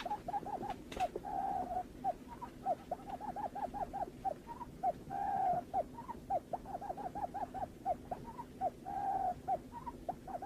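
Barred buttonquail calling: fast runs of short, hooked hooting notes, about five a second, broken by a longer, lower note roughly every four seconds.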